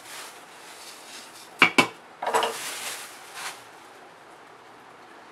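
A wooden spoon knocks sharply twice against a large aluminium pot, followed by a short rattle and rustle of dry roasted poha being stirred in it.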